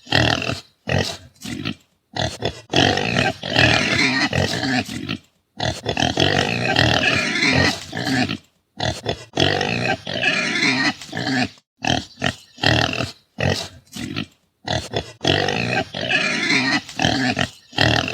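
Pigs calling: a long, loud run of pig vocalizations broken every second or two by brief silences.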